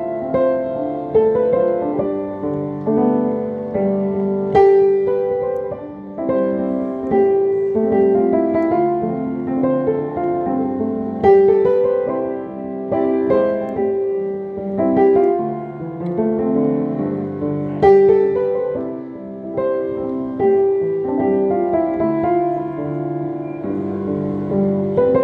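Solo piano playing a melody over lower chords, each note struck and left to fade.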